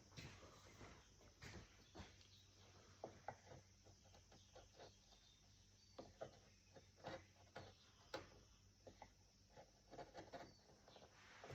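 Faint, irregular small clicks and scrapes of a hand carving tool cutting into wood.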